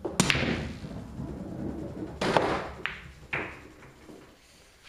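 Pool cue striking the cue ball with a sharp click, followed by the ball rolling on the felt and hard clacks of balls hitting each other and the cushions, three more knocks a few seconds in.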